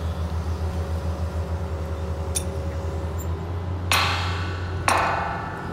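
Excavator diesel engine running with a steady low throb, and near the end two ringing metallic clangs about a second apart as steel rails are gripped and lifted.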